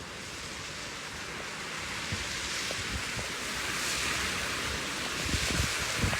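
Wind gusting outdoors: a steady hiss that swells and eases, with wind buffeting the microphone in low thuds near the end.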